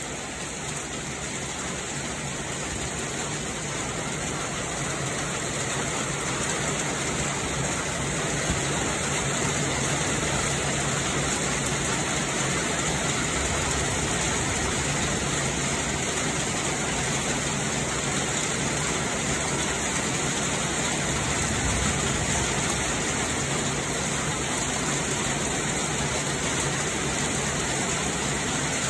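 Heavy storm rain pouring down, a steady hiss that builds over the first several seconds and then holds.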